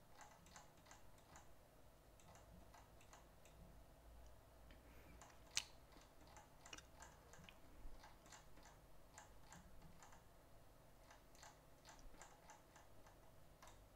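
Near silence with faint, irregular clicks at a computer while the document is scrolled through; one click about five and a half seconds in is sharper than the rest.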